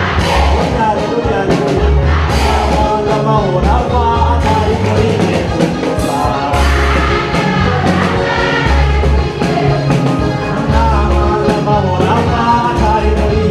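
A crowd singing a lively gospel song together, over a heavy pulsing bass beat and percussion.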